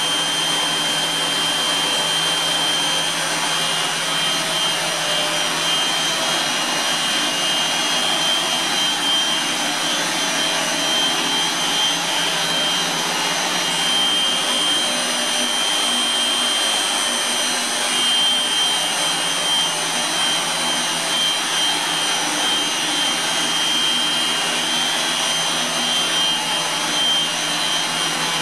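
GEA Westfalia DA 100-06-117 nozzle separator, a disc-stack centrifuge, running at speed: a steady rushing hum with several held high whining tones over it, unchanging throughout.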